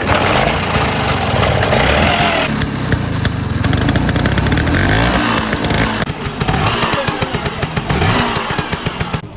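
Vespa scooter engine running and being revved, its pitch rising and falling several times.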